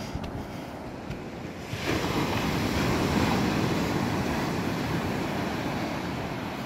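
Ocean surf: a steady wash of waves, with a wave breaking about two seconds in and its rush of water slowly fading.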